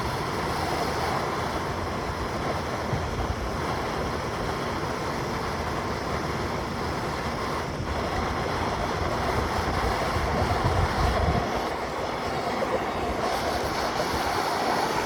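Fan blowing air: a steady rushing, with rumble from the airflow buffeting the microphone.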